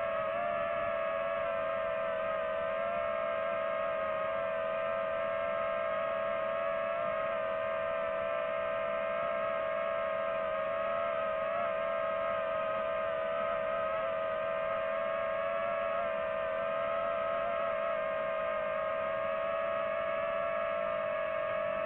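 DJI FPV drone's propellers whining steadily while it hovers, a single buzzing pitch that wavers only slightly with small throttle corrections.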